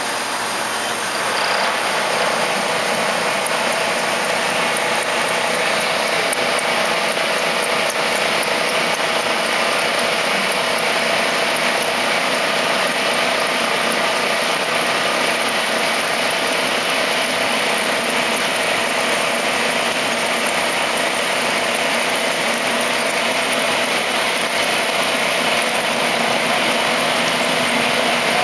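MAHO MH-1000 C/K universal milling machine cutting through aluminium, giving a steady, dense cutting noise that gets a little louder about a second and a half in.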